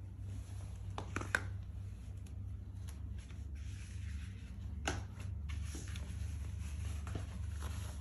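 Birkenstock Madrid Big Buckle slide sandals tapping and scuffing on a tile floor a few times at an irregular pace, over a steady low hum.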